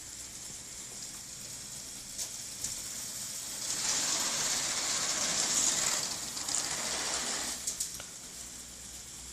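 LEGO Technic roller coaster in motion: a few plastic clicks, then about four seconds of louder rattling as the car runs along the plastic track, ending in a few sharp clicks.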